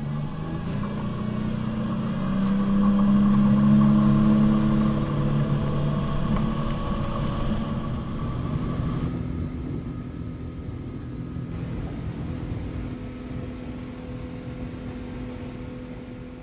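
225-horsepower outboard motor running steadily at speed, driving the boat on plane; it gets louder a few seconds in, then holds steady.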